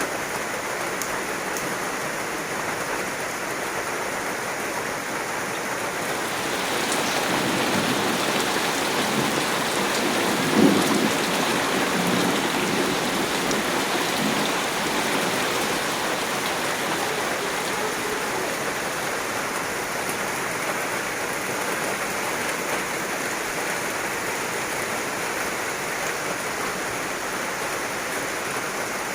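Steady heavy rain that grows heavier about six seconds in. A rumble of thunder builds and peaks with a sharp crack about ten seconds in, then fades.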